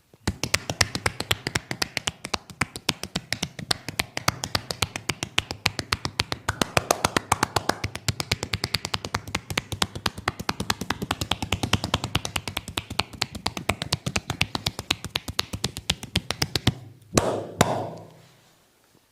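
Percussive massage tapping: hands striking the body in a fast, even rhythm of several strikes a second, stopping suddenly near the end, followed by two louder slaps.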